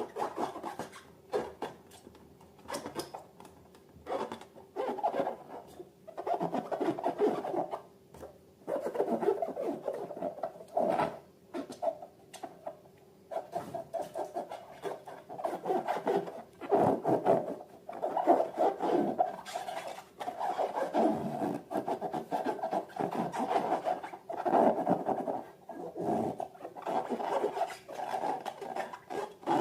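Rubbing and squishing from balloons and slime being handled, in irregular bursts with short pauses between them.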